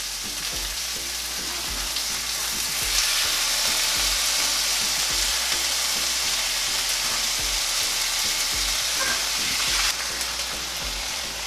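Canned sardines in tomato sauce sizzling in a hot frying pan with sautéed onions and garlic, as they are spooned in from the can. The sizzle grows louder about three seconds in and eases slightly near the end.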